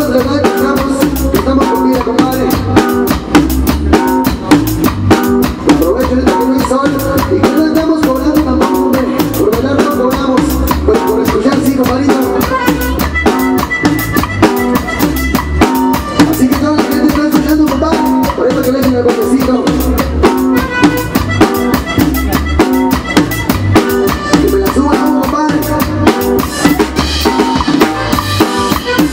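Live cumbia played by a band on drum kit, button accordion and guitars, with a steady drum-kit beat.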